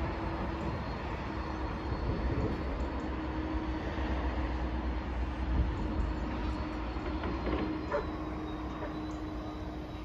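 Steady rumble of distant traffic, with a faint steady hum running under it.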